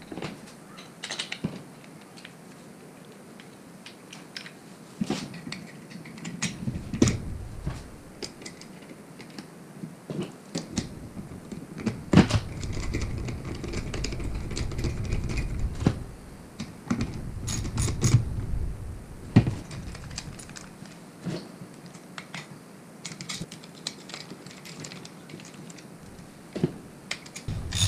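Irregular clicks and clatter of small metal and plastic parts being handled, with a socket wrench ratcheting as locking nuts are tightened onto T-bolts of a kayak roof-rack adapter.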